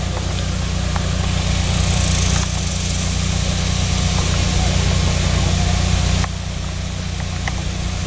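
A steady low engine drone, loud and unbroken, with a slight drop in level about six seconds in.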